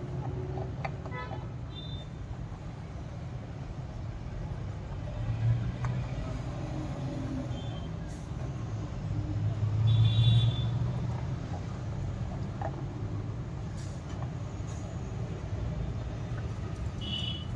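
A motor vehicle's low running rumble, swelling louder about five and ten seconds in, with a few faint clicks.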